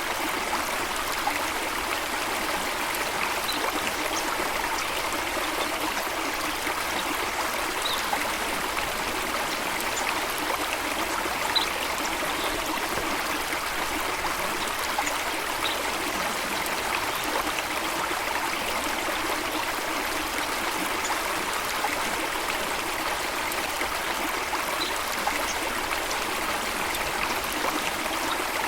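Flowing water of a stream or small waterfall, rushing and trickling at a steady level, with a few faint, brief high notes now and then.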